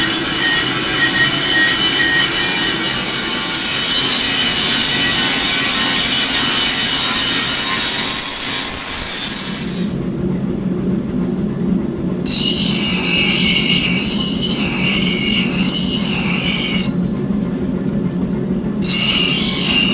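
Power grinding of the steel axe head: a loud, steady rasping scrape with a high ringing whine. About ten seconds in the sound changes, and twice the scraping stops for a couple of seconds while a lower motor hum carries on.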